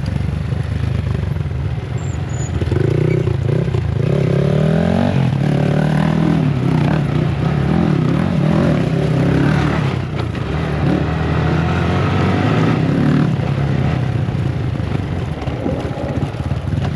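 Motorcycle engines running under way, their pitch rising and falling as they accelerate and ease off, with more than one bike heard at once for much of the time.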